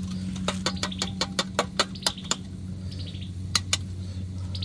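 Shell of a hard-boiled egg being cracked and peeled by hand: a quick run of sharp crackles in the first half, then two more a second later. Birds chirp in short high trills in the background.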